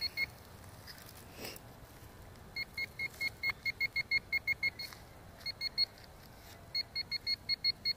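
Metal detector beeping in quick, evenly spaced pulses, about six a second, in three runs with short breaks, signalling metal close to the coil in the dug soil. A faint scuff about a second and a half in.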